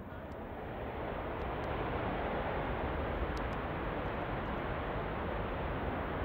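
Fighter jet engines on full afterburner during the takeoff roll: a dense rushing jet noise that builds over the first couple of seconds, then holds steady.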